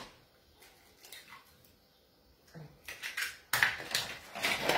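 A hen's egg being cracked open by hand: a few sharp taps and shell crackles, mostly in the second half.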